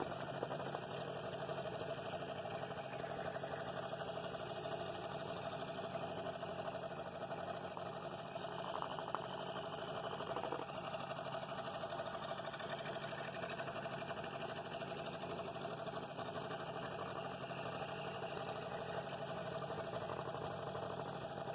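Scroll saw running steadily, its blade cutting through a thick wooden bowl blank with the table tilted for an angled ring cut.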